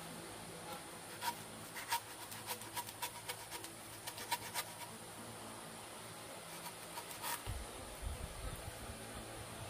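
A blade cutting banana hands off the green stalk: a run of short, irregular crunchy clicks over the first few seconds and a few more later, with a low rumble near the end.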